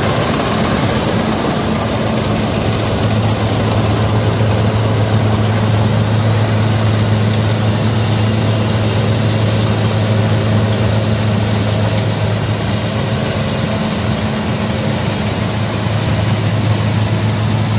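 An engine running steadily at a constant speed, giving an unchanging low hum.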